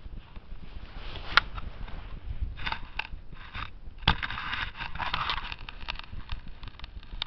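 Scuffing and crunching of boots on dry grass and loose soil as earth is pushed back into a small dug hole, in irregular rustling bursts, with one sharp click about a second and a half in.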